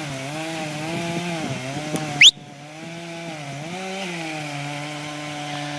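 Chainsaw engine running under load in wood, its pitch wavering and dipping. About two seconds in, a brief, loud, sharply rising whistle-like squeal.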